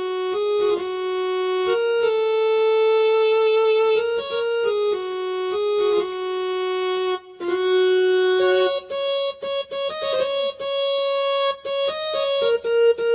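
Casio CTK-2550 electronic keyboard playing a slow single-note melody on one of its built-in preset tones, with long held notes. About seven seconds in the line breaks off briefly, then goes on in shorter, more detached notes.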